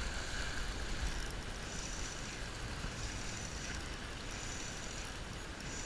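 Small waves washing against a rocky shoreline, with wind rumbling on the microphone.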